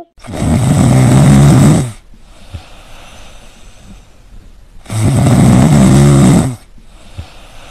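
Two loud, drawn-out snores, each about two seconds long, the second starting about three seconds after the first ends.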